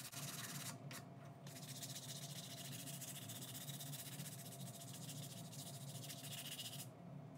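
120-grit sandpaper wrapped on a sanding block, rubbed back and forth by hand over small wooden pieces: a faint, steady rasping hiss. It breaks off briefly about a second in and again near the end.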